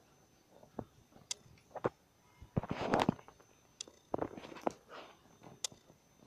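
Handling noise: scattered light taps and rubs of hands moving a small modelled dog figure on a plastic-covered book, with a longer rustle about three seconds in and another just after four seconds.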